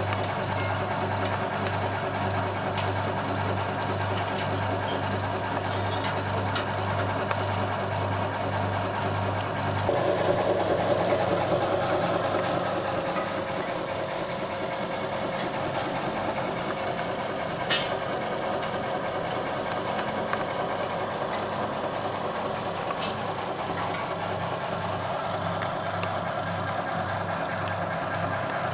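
Small peanut skin-peeling machine running: a steady motor hum with a rapid pulsing beat. The sound changes and thickens about ten seconds in, and there is a single sharp click a little past the middle.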